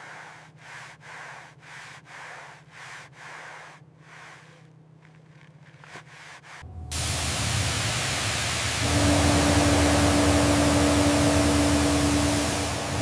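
Faint rhythmic rubbing strokes, about two a second, then about halfway through a loud, steady hissing machine starts, with a steady hum joining a couple of seconds later, like a power tool at work on the airframe.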